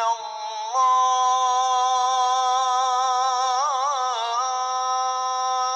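Azan, the Islamic call to prayer, sung by one voice on a long drawn-out note within the phrase 'Ashhadu an la ilaha illallah'. The pitch steps up about a second in, wavers in a short ornamented run just past the middle, then settles on a steady held note.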